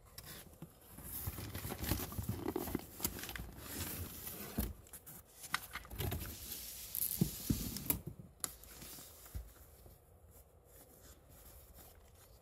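A cardboard box being opened by hand and a fabric pouch lifted out of it: cardboard flaps rustling and scraping, with many sharp clicks and knocks. The handling turns quieter after about eight seconds.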